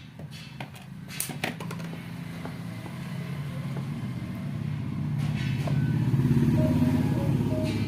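A motor vehicle's engine running, growing steadily louder over several seconds, as of a vehicle approaching; a few sharp clicks sound in the first two seconds.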